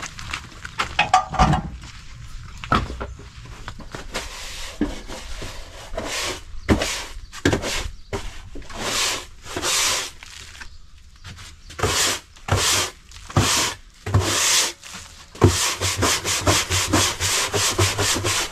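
Push broom with stiff bristles scrubbing hard back and forth across wooden floorboards, a run of rasping strokes that come quicker in the last few seconds, working dried render splatter off the boards.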